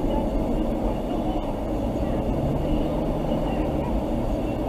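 Steady rumble of engines and machinery at an outdoor rescue site, with a low hum joining about halfway through.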